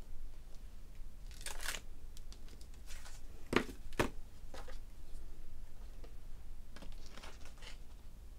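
Tabletop craft handling: paper card rustling as a stamped card is lifted off a clear stamp on an acrylic block, two sharp clacks as the acrylic block is set down, then more paper rustling as the card and a jar of embossing powder are picked up near the end.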